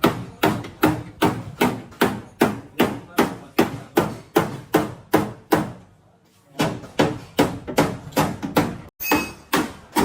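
Hammer blows on a Honda City's sheet-metal body panel, a steady run of about three strikes a second, panel-beating out accident damage. The strikes pause briefly about six seconds in.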